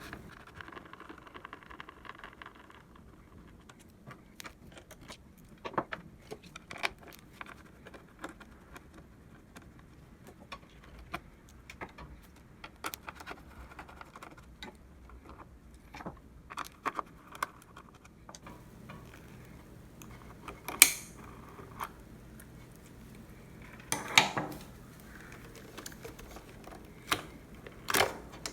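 Small clicks and clinks of hand tools and metal parts while an espresso machine's pump assembly is being unscrewed and taken apart, with a few louder knocks in the second half.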